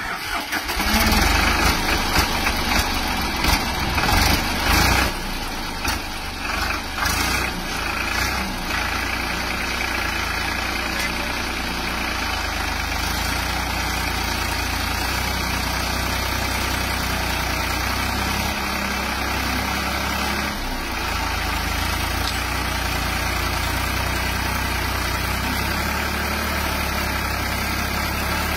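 Tractor diesel engine running under heavy load with its front end reared up and the rear tyres churning sand; loud and surging unevenly for the first few seconds, then a steady drone.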